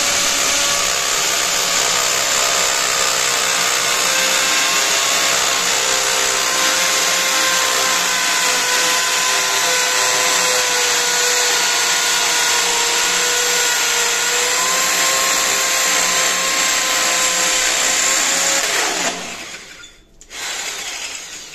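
Steelcheng 950 W corded impact drill in hammer mode, boring into a masonry wall with a long 10-inch masonry bit and running steadily under load. It stops about nineteen seconds in, then gives one short burst about a second later.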